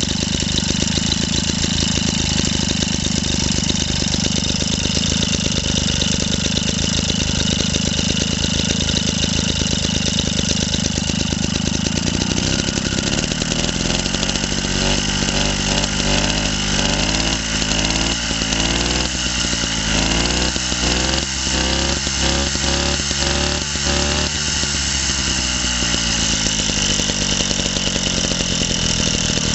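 A JAP Model 80 80cc stationary engine running on test. Its firing beat goes uneven and its speed wavers up and down through the middle stretch, then it settles back to a steady run.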